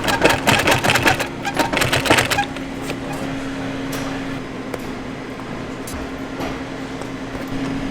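Sewing machine stitching boot leather: a rapid run of needle strokes for the first two seconds or so, then the machine humming steadily with only a few light clicks.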